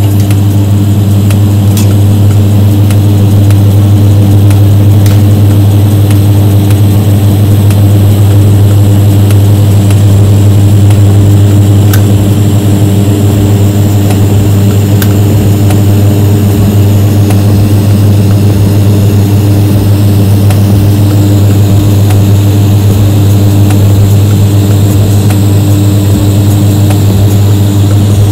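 Electric welding arc running continuously during a repair weld over a root concavity (suck-back) defect, a loud steady hum with a faint hiss.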